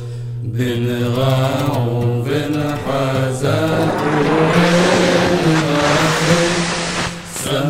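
Chant-like singing over a steady low drone. About three and a half seconds in, a loud rushing noise swells over the singing and fades away shortly before the end.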